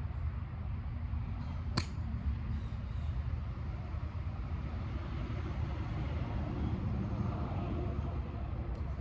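A golf club striking a ball off a range mat: one sharp, crisp click about two seconds in, over a steady low background rumble.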